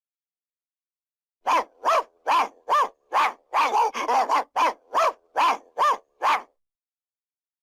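Dog barking: a quick run of about a dozen barks beginning about a second and a half in, with a few overlapping near the middle.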